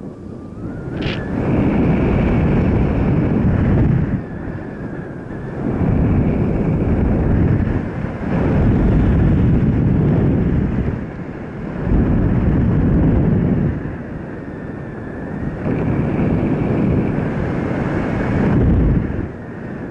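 Wind rushing over the microphone of a moving road vehicle, swelling and easing every few seconds, with a faint steady whine underneath.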